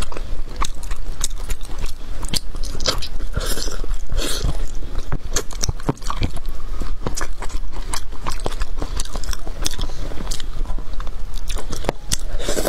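A person chewing and biting braised pork trotter close to a lapel microphone: a quick run of mouth clicks and smacks, several a second throughout.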